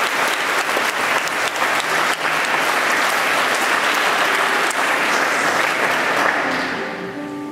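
Congregation applauding, a dense steady clapping that dies away near the end as soft instrumental music comes in.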